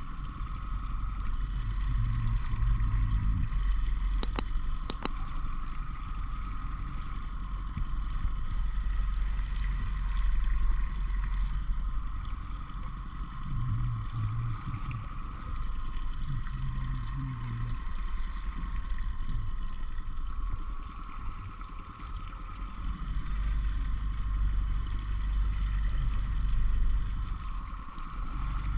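Small boat's outboard motor running steadily at trolling speed, with water washing along the hull. Two sharp clicks come about four and five seconds in.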